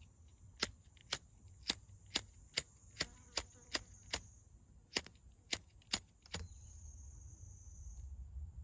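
A pocket lighter is clicked about a dozen times, roughly twice a second, and does not light. The clicks stop a little over six seconds in, followed by a low rumble of handling.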